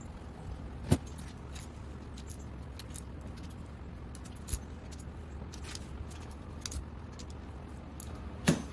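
Scattered light metallic clinks and clicks of hand tools and small engine parts being handled while the motorcycle engine's top end is fitted and snugged down, over a steady low hum.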